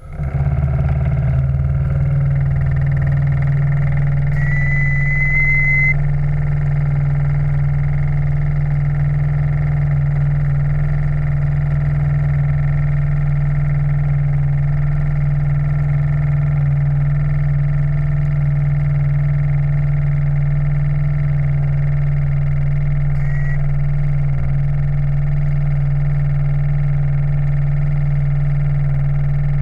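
Steam launch running steadily, its steam plant giving a constant low hum. A brief high tone sounds about five seconds in.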